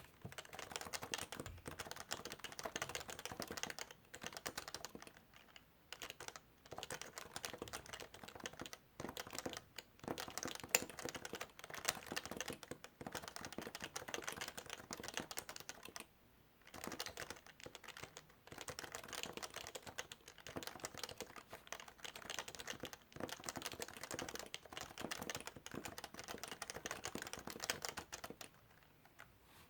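Fast, continuous typing on a Topre Realforce keyboard, whose capacitive rubber-dome switches give quick runs of key presses with a few brief pauses.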